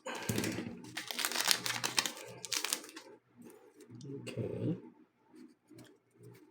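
Foil booster pack wrapper crinkling and tearing for about three seconds, followed by quieter handling noises.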